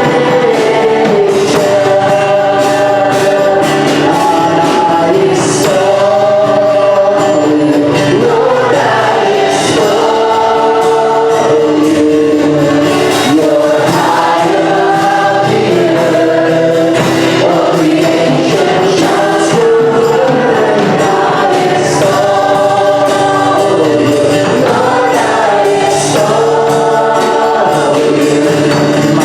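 A choir singing a Christian worship song over musical accompaniment, with sustained, steady-loud singing.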